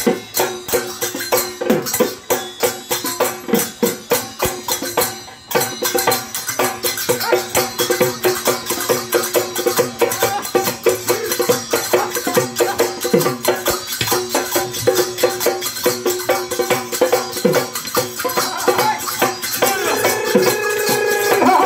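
Assamese dhol barrel drums played in a fast, driving rhythm, with small hand cymbals clashing along on the beat. The beat breaks off briefly about five seconds in, then carries on.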